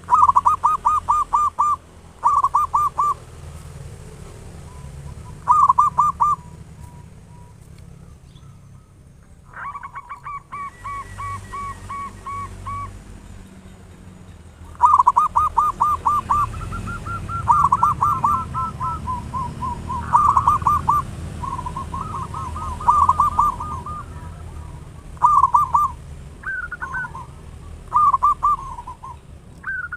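Zebra dove (perkutut) cooing loudly: repeated phrases of fast rolling notes, some opening on a higher note, with short pauses between phrases.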